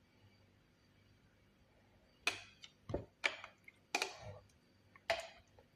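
Light clicks and knocks from kitchen things being handled, five or six of them, starting about two seconds in and spaced irregularly.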